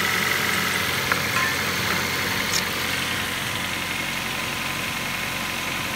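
Ford Focus 1.6i four-cylinder petrol engine (FYDA) idling steadily in the car, with a couple of light clicks about one and two and a half seconds in.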